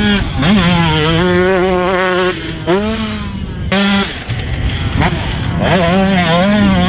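2022 Husqvarna TC125's 125cc single-cylinder two-stroke engine revving hard at full throttle, its pitch rising and falling as the throttle is worked, and dropping off briefly twice near the middle.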